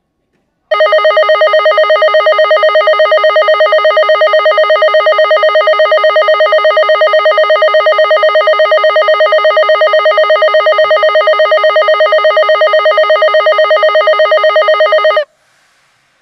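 Kotoden station platform departure signal: a loud, steady bell-like ringing with a rapid trill. It starts about a second in, runs for about fourteen seconds and cuts off sharply near the end, signalling that the train is about to leave.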